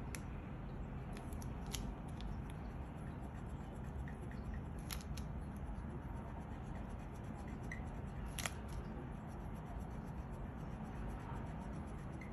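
Pencil scribbling on folded origami paper in quick short strokes, shading in tiger stripes, with a few sharper ticks.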